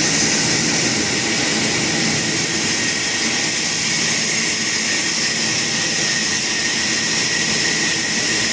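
Sawmill saw running steadily: a constant loud noise with a steady high whine.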